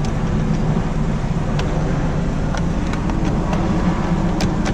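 Light clicks and taps as plastic steering-column parts around the turn signal switch are fitted back together, over a steady low hum.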